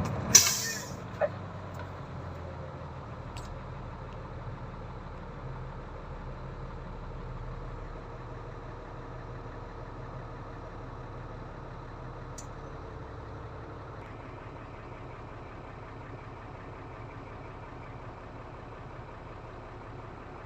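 Diesel engine of a Caterpillar 320 excavator running steadily, with a short sharp hiss about half a second in.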